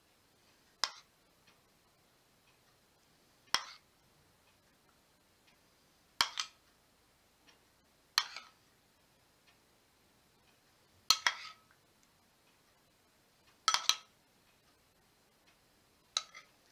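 Metal spoon clinking against a dish while dressing is scooped and spooned onto a salad. Seven sharp taps come every two to three seconds, several of them doubled.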